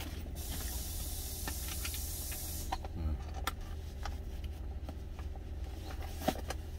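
Plastic lunch container and lid being handled and packed into a cloth drawstring bag: light clicks and handling rustles over the low hum of the truck's idling engine. A steady hiss runs for the first two and a half seconds, then stops.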